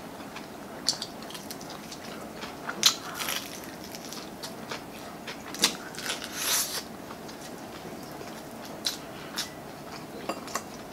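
Biting into and chewing crispy fried chicken: sharp crunches of the fried coating, loudest about three and about five and a half seconds in, with a longer crackly chew just after, then softer chewing.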